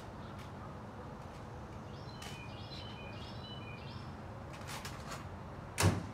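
A bird singing in the background, a run of short whistled notes at several pitches, over steady outdoor background noise; near the end comes a single loud thump.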